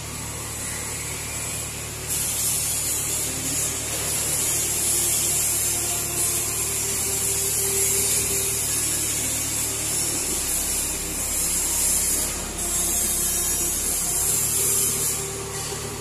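A Komatsu PC78UU mini excavator's diesel engine running with a low steady hum as its arm moves, under the steady high hiss of a power tool that breaks off briefly a couple of times.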